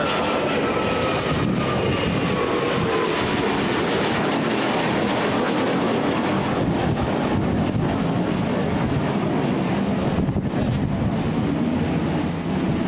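Navy jet fighter's engines roaring as it flies past, with a whine that falls in pitch over the first few seconds as it passes, then a steady rushing roar.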